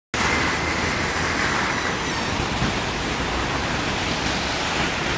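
Steady rushing roar of a river in full flood, a fast, churning torrent of muddy water running bank-full.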